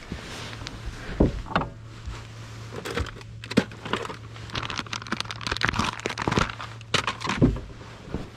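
Crinkling and crackling handling noise with a string of sharp clicks, busiest in the middle, over a steady low hum.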